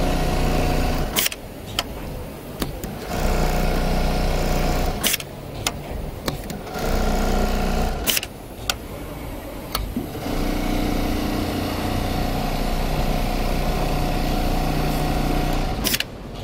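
Programmable pattern sewing machine stitching through leather: several runs of steady machine running broken by short pauses, with sharp clicks at the stops. The last and longest run starts about ten seconds in and stops shortly before the end.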